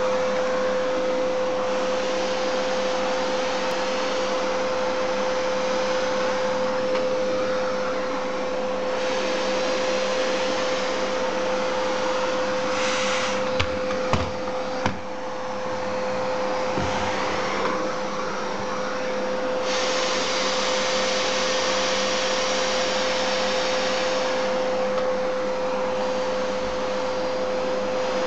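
Vacuum cleaner running steadily over an Alaskan Malamute's thick coat to suck up its shed undercoat. A constant whine sits over a rush of air that grows brighter and duller by turns, with a few knocks about halfway through.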